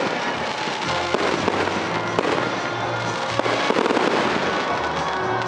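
Fireworks display: a dense run of bangs and crackling from aerial shells bursting overhead, with music playing underneath.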